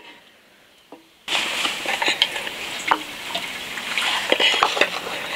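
Food frying in a hot pan, a steady sizzle with scattered clicks and scrapes of stirring, starting abruptly about a second in. The pan holds buffalo offal being stir-fried.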